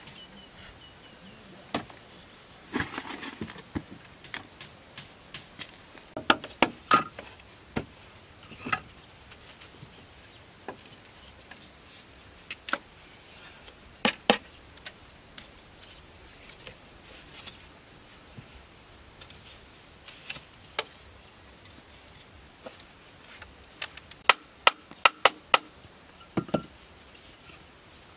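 Green bamboo being knocked, tapped and cut by hand: scattered sharp knocks, with a quick run of about six sharp taps near the end.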